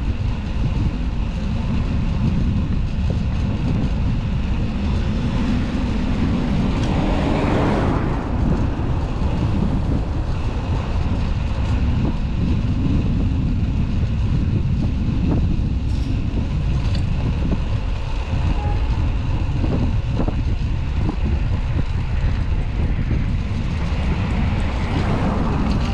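Steady low rush of wind and city traffic heard from a moving bicycle. A vehicle swells past about seven seconds in, and another near the end.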